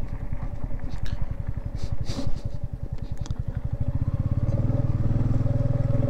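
Motorcycle engine running on the move, a fast low beat throughout. About four seconds in the engine note grows louder and steadier as it pulls harder.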